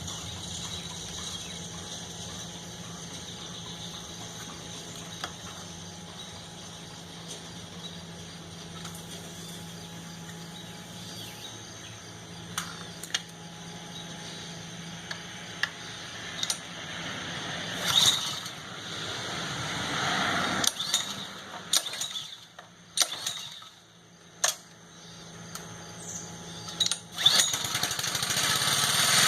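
Honda 2600 pressure washer being started: a steady low hum, then several sharp knocks and clatters, a brief lull, and the small engine running louder near the end.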